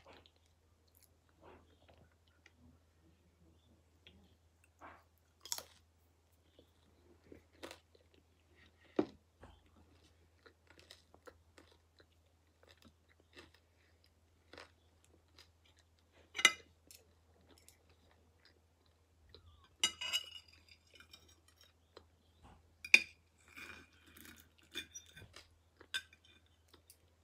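Close-up eating sounds: chewing and crunching mouthfuls of bacon. Occasional sharp clicks stand out, loudest about twenty and twenty-three seconds in, as the knife and fork strike the ceramic plate while cutting the fried egg.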